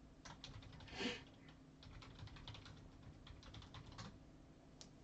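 Faint, irregular tapping of computer keyboard keys, with one brief louder rush of noise about a second in.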